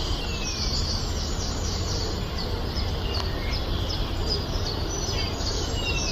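Several birds chirping in quick short falling calls, with an occasional longer falling whistle, over a steady low background rumble.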